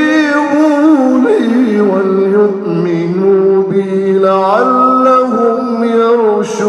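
A man's voice reciting the Quran in the Rukbani maqam, drawing out long, ornamented sung notes. The melody steps up in pitch about four and a half seconds in.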